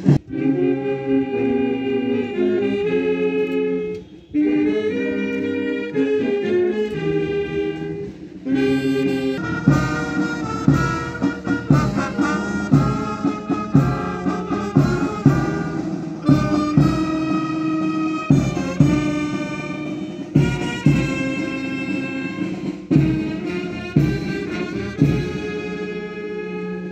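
Police brass band playing, loud sustained brass chords at first, then a steady drum beat under the melody from about a third of the way in.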